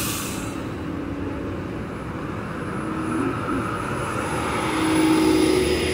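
Caio eMillennium battery-electric buses pulling away and passing close by: the electric drive motor whines, slowly rising in pitch over tyre and road noise, and it grows louder about five seconds in. A short hiss of air fades out at the very start.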